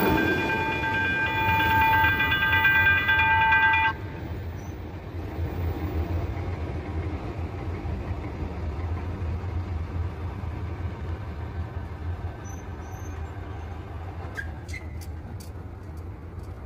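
A held high tone with overtones that cuts off suddenly about four seconds in, followed by the steady low rumble of a train, with a few sharp clicks near the end.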